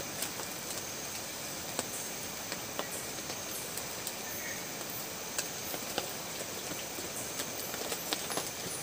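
Scattered light clicks and taps of plates and a spoon as people eat by hand, over a steady high hiss of outdoor background.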